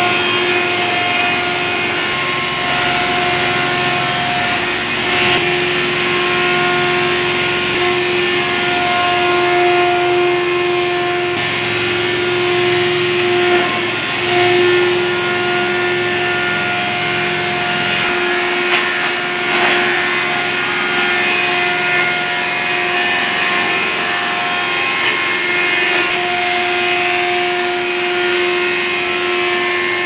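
Sawdust-making machine running steadily as it grinds wood into sawdust: a constant mechanical hum of unchanging pitch over a loud rushing noise.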